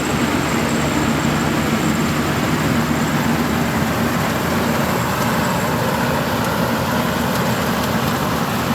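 GAM combine harvester with a 102 hp engine, running steadily. The engine and the threshing machinery make an even, unbroken noise with a faint high whine over it.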